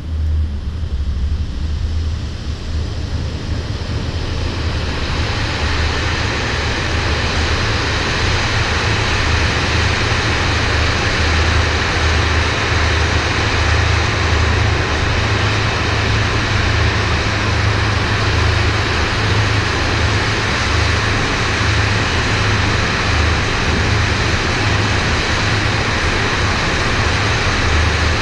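Train running past close by: a steady low hum with wheel-on-rail noise that builds over the first few seconds and then holds steady.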